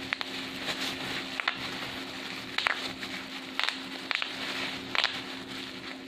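Bubble wrap cells being popped by hand: about seven sharp pops, some in quick pairs, at irregular intervals of half a second to a second.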